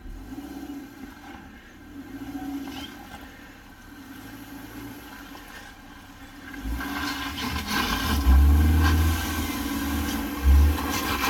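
An off-road SUV's engine running under load as it crawls over rocks, louder with harder throttle and scrabbling from about two-thirds of the way in. A loud thump near the end, which the spotter puts down to a rock kicking out.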